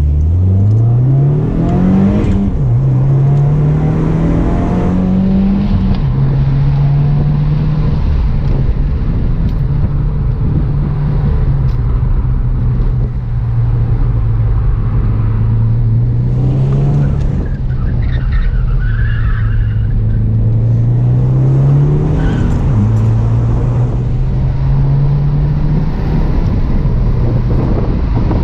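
Subaru WRX's turbocharged flat-four engine driven hard on a timed track run, launching at the start with its pitch climbing fast. The pitch then keeps rising and falling as the car accelerates, shifts gear and slows, with sudden drops at the upshifts.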